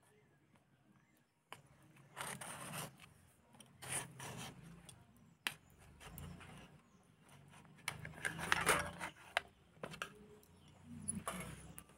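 Metal spatula scraping against a steel plate as it is worked under slices of a soft steamed cake to lift them out: several short scraping strokes, the loudest about two thirds of the way through.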